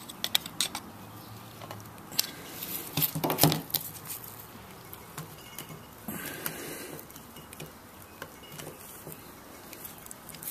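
Small metal clicks, taps and scraping from a Briggs & Stratton engine's valve, compressed valve spring and valve spring compressor being worked by hand in the engine block, while the valve is still held by its spring. The clicks are scattered, with a cluster about three seconds in and a short scrape around six seconds.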